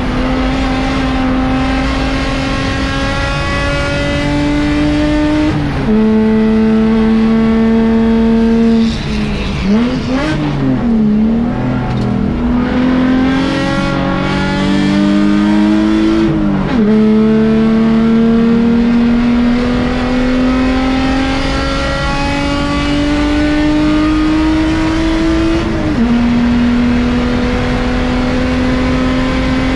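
Mercedes C300 race car's V6 engine heard from inside the cabin under hard acceleration. The pitch climbs slowly through each gear and drops sharply at upshifts about six, seventeen and twenty-six seconds in. Around ten to twelve seconds in, the revs swoop down and up several times as it brakes and downshifts for a corner.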